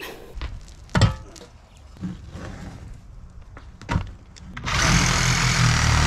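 Two knocks, then a cordless drill runs steadily for about two seconds near the end, driving at the screws of the plastic pond-reservoir lid to take it off.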